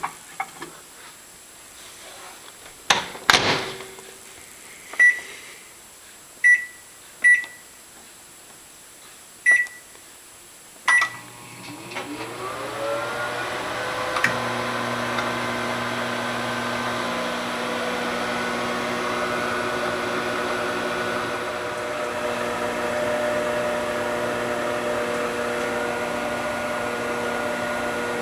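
An appliance door closes with a knock, five keypad beeps follow, then a microwave oven starts. Its fan glides up to speed over a couple of seconds and it keeps running with a steady hum.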